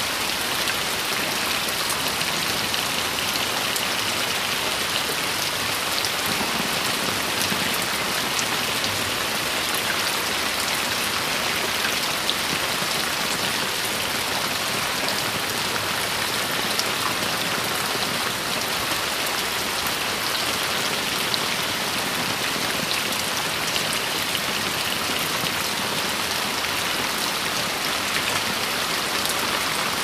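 Steady rain falling: an even hiss of countless drops.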